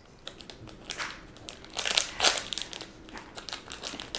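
Shiny foil blind-bag packet crinkling and crackling as hands handle it and work it open, in irregular crackles that are loudest about two seconds in.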